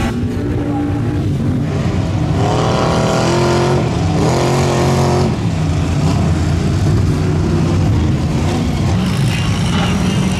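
Lifted mud truck's engine running loud as it churns through a flooded mud pit. A strong, held engine pitch stands out for a few seconds in the middle.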